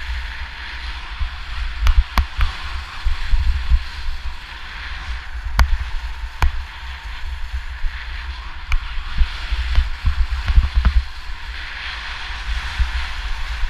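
Skis running and scraping over the snow on a downhill run, with wind buffeting the microphone in a gusty low rumble and a few sharp clicks.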